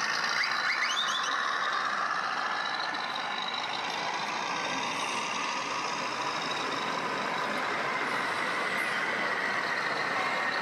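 Scale RC model truck's sound module playing truck engine sound against a steady background hubbub, with a few quick gliding chirps in the first second.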